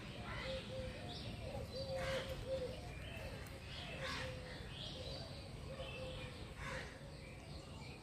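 Kittens chewing small raw fish, with short bites every second or two. Birds call steadily in the background.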